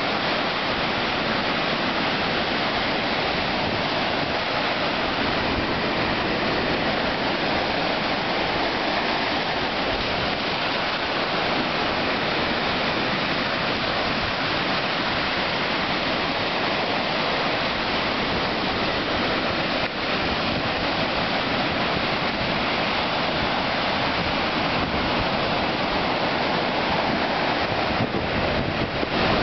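Ocean surf breaking and washing up onto a sandy beach: a steady, unbroken rush of waves.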